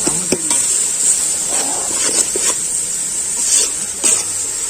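Biryani masala frying in oil in a pot, a steady sizzle, with a ladle stirring and scraping against the pot now and then.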